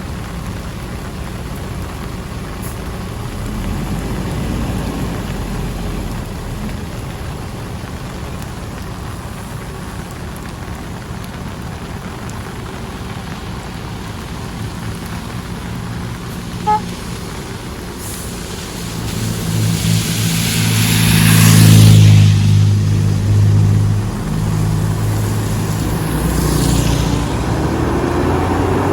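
Heavy rain hissing steadily, with a motor vehicle passing close by on the wet road about two-thirds in, its engine hum and tyre spray swelling and then fading; another vehicle passes near the end.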